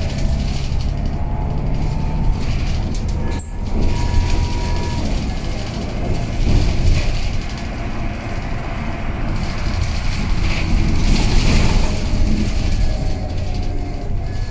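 Cabin sound of a Scania L94UB single-deck bus driving at speed: steady engine and road noise, with a whine that slides up and down in pitch. Loudness dips briefly about three and a half seconds in, then builds again.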